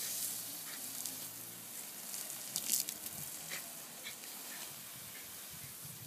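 Garden hose jet spraying upward, a steady hiss of water with a few short splashes as the spray breaks up, the sharpest about two and a half seconds in.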